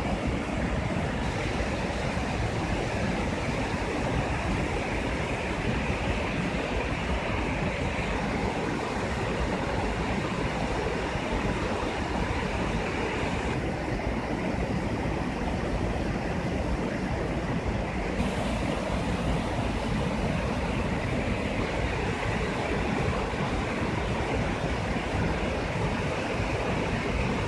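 Steady rushing of water as the reservoir overflows the spillway of a masonry stone arch dam and tumbles over its apron into a rocky riverbed. Its hiss brightens or dulls abruptly a few times.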